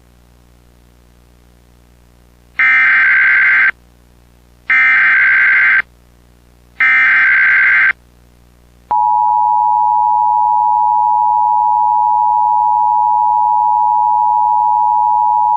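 Emergency Alert System opening: three one-second bursts of SAME header data, a shrill digital screech, about a second apart, then the steady two-tone EAS attention signal starting about nine seconds in.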